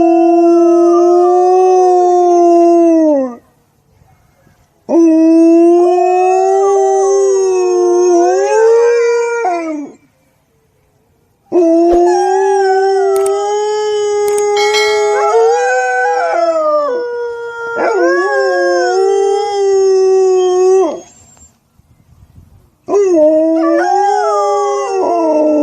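A dog howling: four long, drawn-out howls separated by short pauses, each holding a steady pitch before wavering and trailing off at the end.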